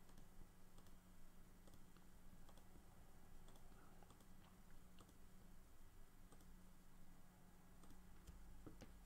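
Faint computer mouse clicks, irregular and spaced apart, made while selecting objects on screen, over a steady low electrical hum.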